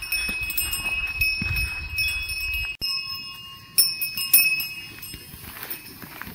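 Bells worn by grazing horses ringing and clanking as the horses move. After a short break, birds chirp and more bell tones sound.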